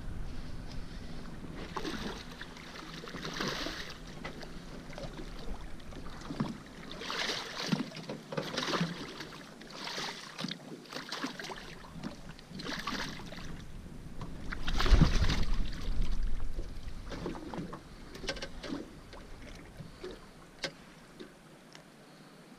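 A hooked striped bass splashing and thrashing at the water's surface beside a small boat as it is reeled in: a run of separate splashes, the loudest about two-thirds of the way through.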